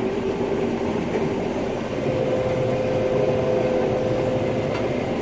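Combine harvester running, heard from inside the cab: a steady machine drone with a hum whose pitch steps up about two seconds in.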